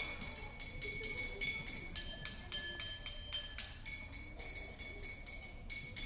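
Percussion solo on metal kitchenware: quick strikes, several a second, on pieces that ring with a clear pitch. About two seconds in the ringing moves to a lower-pitched piece, then returns to the first about two seconds later.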